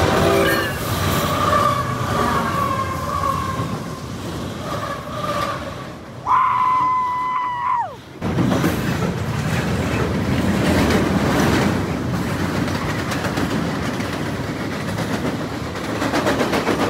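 CSX freight train crossing a steel truss railroad bridge close by: a diesel locomotive passes, then the steady rumble and clatter of freight and tank cars rolling over the bridge. A high ringing tone sounds for under two seconds about six seconds in, bends down and cuts off.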